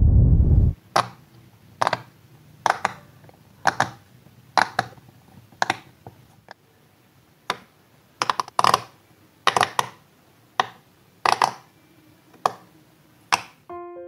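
Silicone pop-it fidget toy bubbles pressed in by fingers: sharp pops about once a second, some in quick pairs. A loud low rumble from the intro cuts off suddenly about a second in.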